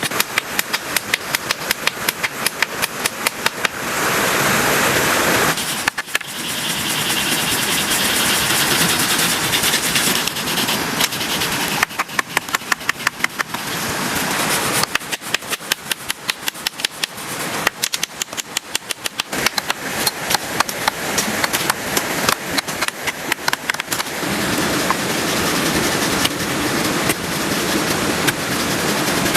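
Heavy rain with runs of rapid sharp knocks, several a second, that start and stop.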